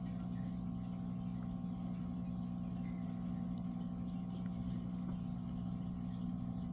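A steady low hum with no change, with a few faint light ticks.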